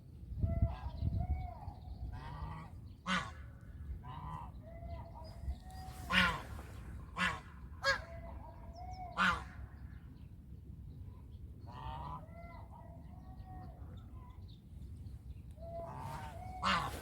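Farmyard geese honking: a string of loud, abrupt honks with softer, lower calls in between. A low rumble is heard in the first second or so.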